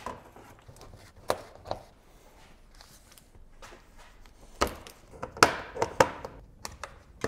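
Plastic engine under tray being pushed up and fitted under the car: a series of sharp knocks and clicks of hard plastic against the car's underside, loudest and most frequent in the second half.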